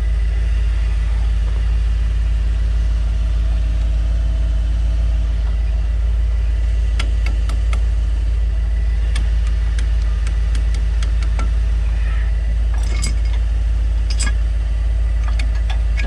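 Engine idling steadily, with scattered sharp metallic clicks and clinks starting about seven seconds in.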